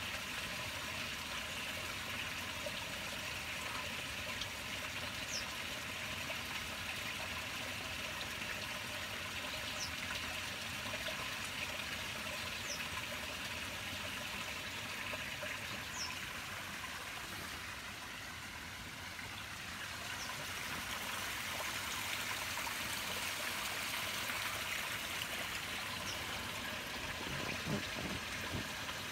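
Steady rush and trickle of water flowing in a concrete fish-hatchery rearing pond, easing a little about two-thirds of the way through.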